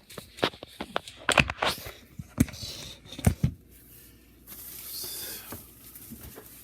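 Handling noise as a sack and its contents are carried: a run of sharp knocks and clicks, then a softer rustle about five seconds in.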